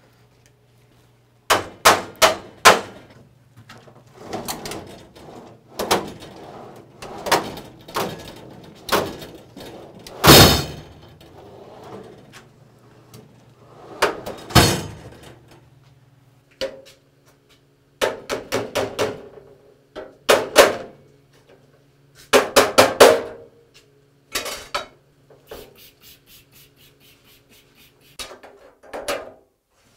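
Steel drawers and drawer slides of a Snap-on toolbox knocked, tapped with a mallet and clattered while being taken out for cleaning: a string of separate metallic knocks and quick rattles, the loudest a sharp bang about ten seconds in. Near the end come a few squirts of a spray bottle.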